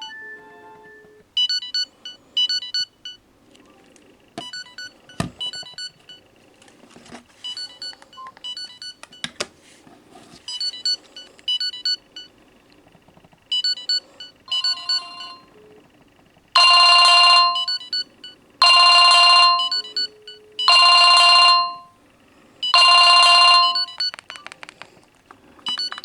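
Samsung E1080 and E500 feature phones ringing at once, an incoming-call ringtone and an alarm: short repeated electronic beep melodies, a few clicks, then four loud, long buzzy tones about two seconds apart in the last third.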